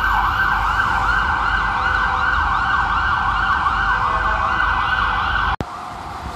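An ambulance siren in its rapid yelp mode, sweeping up and down about three times a second over city traffic. About five and a half seconds in it cuts off abruptly, leaving quieter street traffic noise.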